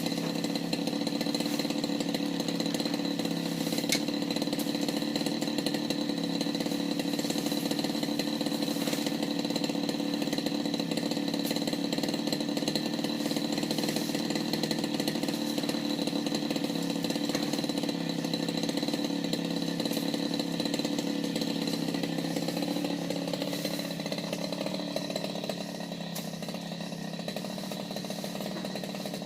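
Petrol brush cutter running steadily at cutting speed while harvesting patchouli; the engine eases down to a lower, quieter speed a little over twenty seconds in.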